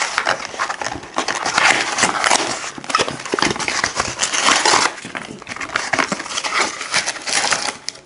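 A cardboard trading-card hanger box being torn open and handled: continuous rustling and tearing of card with many sharp crackles and clicks.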